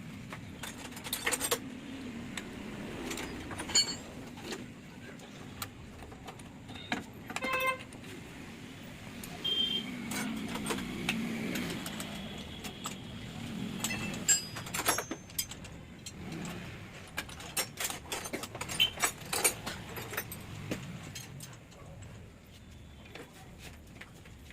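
Metal engine parts and hand tools clicking and knocking against each other during hand assembly of a two-stroke motorcycle engine, with one ringing metallic clink about seven and a half seconds in.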